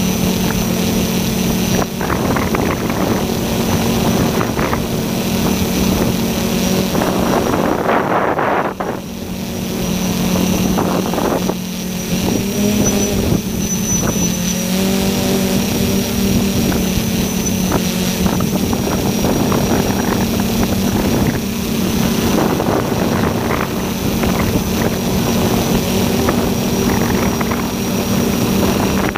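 Fortis Titan tricopter's three brushless motors and propellers whining steadily, heard from the camera on board. The pitch shifts with throttle and the sound dips briefly about eight seconds in.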